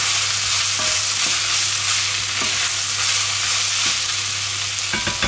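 Diced vegetables and tomato paste sizzling as they are sautéed in an enamelled cocotte, stirred with a spatula. There is a steady frying hiss with soft scrapes of the spatula, and a few sharper clicks against the pot near the end.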